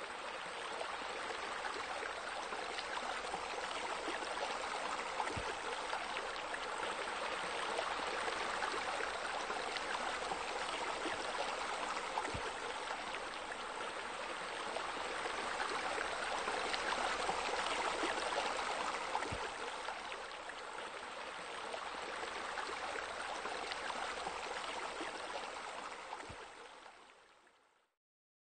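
Steady rush of running water, like a spa spillover or fountain pouring into a pool, with a faint click about every seven seconds, fading out near the end.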